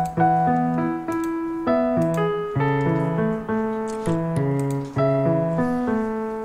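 Background music: a piano or electric-piano melody over chords, with a new note or chord about every half second.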